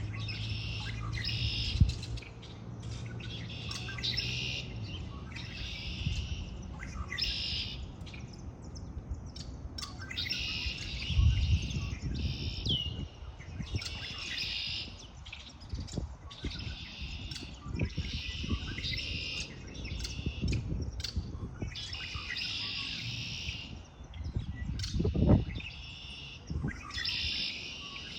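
Small songbirds chirping and singing in spring: short bursts of high chirps repeating every second or two, over a low rumble with a few thumps.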